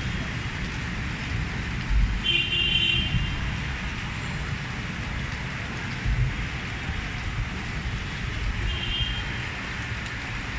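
Steady outdoor city background noise, mostly distant road traffic, with low wind rumbles on the microphone. Two brief high tones cut through, about two seconds in and again near the end.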